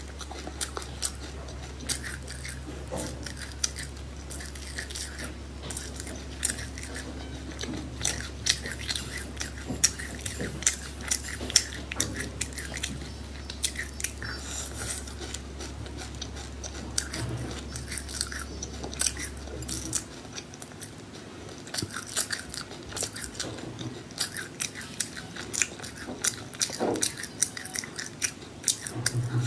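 A person chewing crunchy seeds up close, with dense, irregular crackling crunches.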